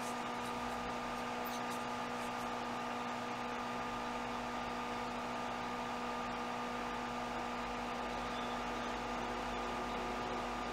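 Steady hiss with a constant electrical hum made of several fixed tones, unchanging throughout: background noise of the recording setup.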